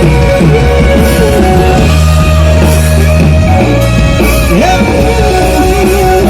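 Loud pop-rock music with guitar and a heavy bass line playing under a wavering melody, between sung lines of a Tagalog song.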